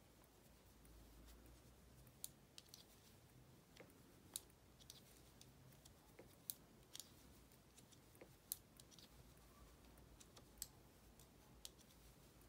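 Faint, irregular clicking of circular knitting needles tapping together as stitches are purled, about one click a second over quiet room tone.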